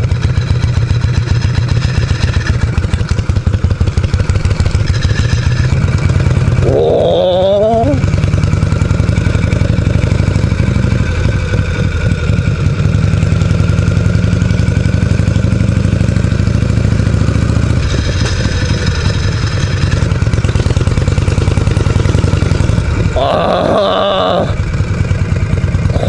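Harley-Davidson Shovelhead V-twin engine running steadily as the motorcycle is ridden, heard from the rider's seat as a continuous low, fast beat. Twice a short wavering higher sound cuts in over it, about a quarter of the way in and near the end.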